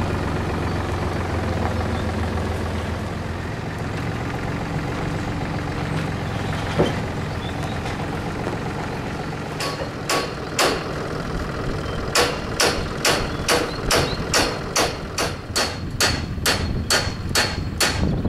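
A low steady rumble, then hammer blows on steel: a few sharp ringing strikes about ten seconds in, then a regular run of about two a second for the last six seconds.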